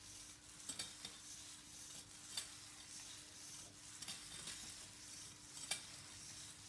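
Venom hexapod robot walking on carpet: its leg servos whir faintly over a steady low hum, with scattered light clicks from the moving legs.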